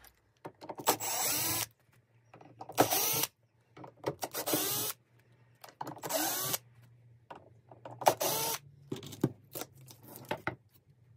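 Cordless drill-driver backing screws out of a wooden board in about five short runs of under a second each, with faint clicks between them.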